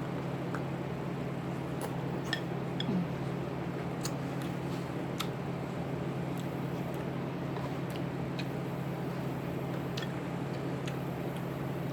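Quiet eating at the table: scattered small clicks and wet smacks from peeling and chewing shrimp boil, over a steady low hum.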